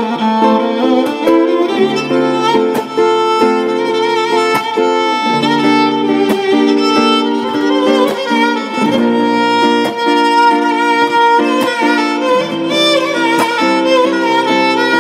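Solo violin playing a Turkish pop melody in sustained, bowed notes. It plays over a backing track with a changing bass line and regular percussion hits.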